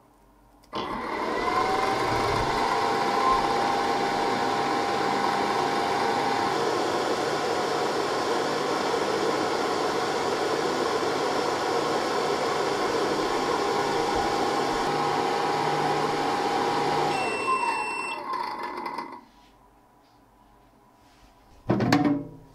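Creality UW-01 wash and cure station running in UV-curing mode: its fans and turntable motor whir steadily, starting about a second in after the start button is pressed, then winding down near the end. A short knock follows just before the end.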